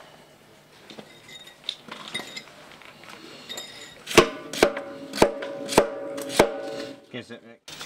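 Hammer striking a stainless steel retaining ring fitted over a rubber pipe seal: a few light taps, then about halfway through five sharp, ringing metallic blows about half a second apart. The hammering vibration seats the EPDM rubber seal against the pipe wall.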